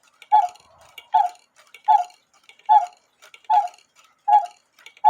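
Austrian quarter-hour cuckoo clock movement ticking steadily, a little over one tick a second, each tick with a brief ringing note.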